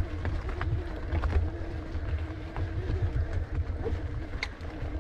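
E-mountain bike riding up a loose gravel road: tyres crunching over stones with scattered sharp ticks, a steady low motor hum, and wind rumbling on the microphone.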